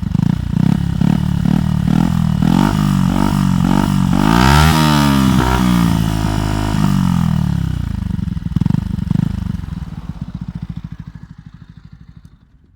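Yamaha YZF-R125's single-cylinder four-stroke engine with a LeoVince aftermarket exhaust, revved in quick throttle blips about twice a second, then one long rev about five seconds in that falls back. The engine sound then fades away near the end; it is pretty loud.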